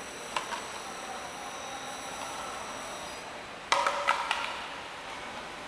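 Automatic bottle labeling machine running with a steady noise and a thin high whine that stops about three seconds in. About four seconds in, hollow plastic bottles knock and clatter together as they are gathered by hand off the end of the conveyor.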